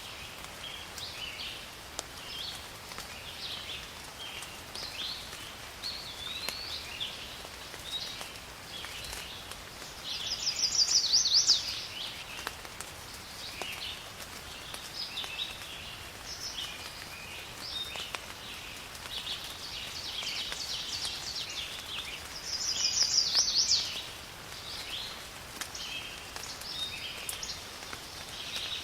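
Steady light rain with small birds chirping throughout. Twice a louder, quick trilled birdsong rises above it, about ten seconds in and again about twelve seconds later.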